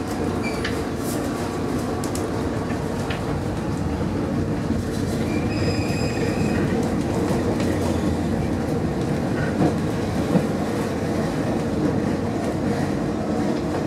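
Trieste–Opicina tram car running on its rails, heard from inside the car with the windows open: a steady rumble of wheels and running gear. A brief high-pitched squeal comes about six seconds in, and two short knocks near ten seconds.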